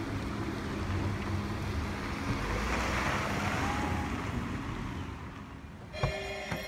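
Two cars driving off along a dirt road, a steady rush of tyres and engines that swells as one passes close about three seconds in. Music starts with a click near the end.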